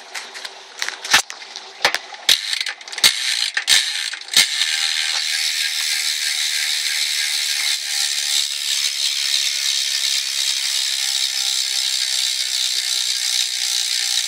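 BMX rear hub freewheeling: a few separate clicks and knocks as the wheel is set spinning, then from about four seconds in a steady, fast, high-pitched ratchet buzz of the hub's pawls as the wheel spins freely.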